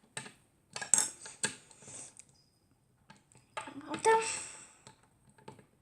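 Plastic Lego pieces being handled and pulled apart: several sharp clicks in the first two seconds, then a longer clattering rattle about four seconds in.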